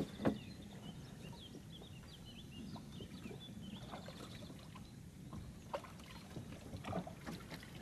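Quiet ambience in a small fishing boat on calm water: faint bird chirps in the first few seconds over a low steady hum, with a few light knocks from gear being handled in the boat, one just after the start and a couple near the end.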